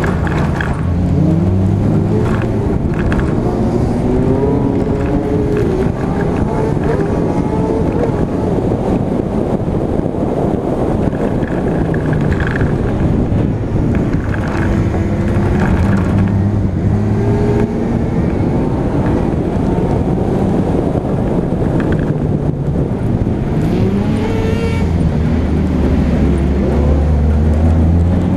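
Daihatsu Charade G102's 1.3-litre four-cylinder engine at racing speed on a dirt autocross track, heard from outside the car, its pitch climbing under acceleration and dropping at each shift or lift several times over, over steady tyre and wind noise with a few brief knocks.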